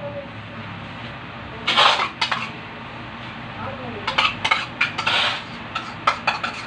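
A metal spoon scraping and clinking against a bowl and plate while spreading a tuna mixture onto eggplant halves, in clusters of short scrapes and clicks about two seconds in, from four to five seconds, and again near the end.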